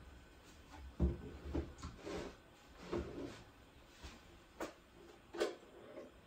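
Scattered soft knocks and thumps, with two sharper clicks in the second half, like things being handled or set down out of sight.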